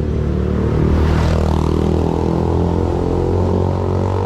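A motor vehicle's engine running close by: a steady low hum that builds to its loudest about a second in, with a brief hiss at that point, then holds on.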